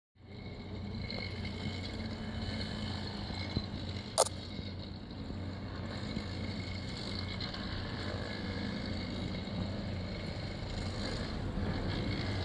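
Steady engine drone of track-work machinery running at night work on a railway level crossing, with a sharp knock about four seconds in.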